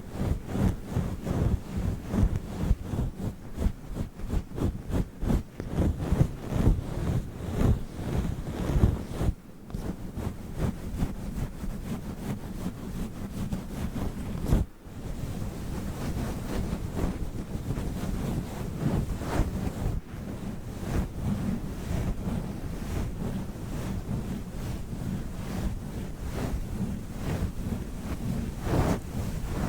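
Fluffy microphone cover being rubbed and brushed directly against the microphone: a dense, rumbling scratchy rustle made of quick strokes. It breaks off briefly about nine and a half and about fifteen seconds in, then runs on as steadier rubbing.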